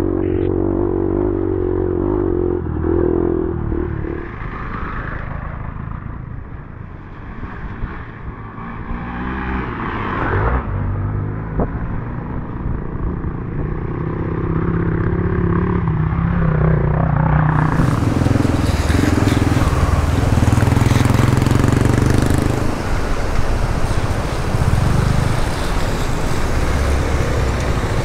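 Trail motorcycle engine running, its revs rising and falling. About two-thirds of the way in, a loud steady hiss joins it.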